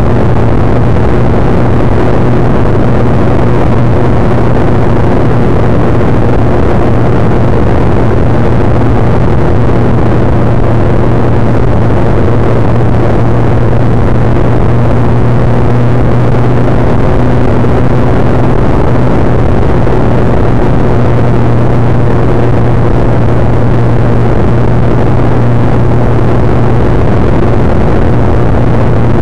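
Loud, steady wind rush over the microphone of camera sunglasses on a motorcycle rider at speed, over the even drone of a Suzuki GSX-R1100's inline-four engine cruising at constant pitch.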